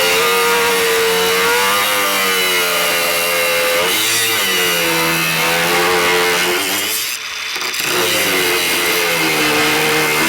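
DeWALT DCG413B 20V cordless angle grinder cutting under heavy load. Its motor whine sags and recovers in pitch as it is pushed into the cut, and about seven seconds in it eases off briefly before biting in again.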